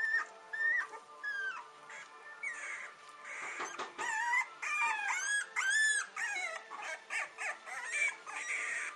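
Young French bulldog puppies whimpering and squeaking, with many short, high, bending cries. The cries come sparsely at first, then overlap thickly through the middle and latter part.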